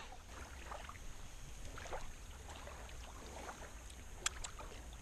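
Quiet outdoor background: a steady low rumble with faint scattered soft sounds and a sharp click a little after four seconds in.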